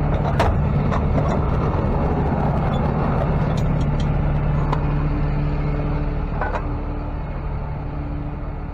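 Tow truck engine running steadily, with a few sharp clicks and knocks over the top.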